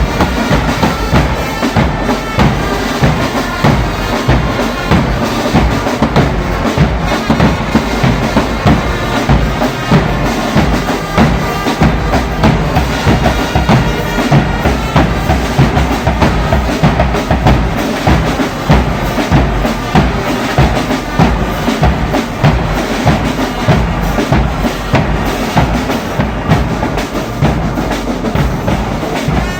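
Church brass band music driven by bass drum and snare drum, keeping a steady beat without a break.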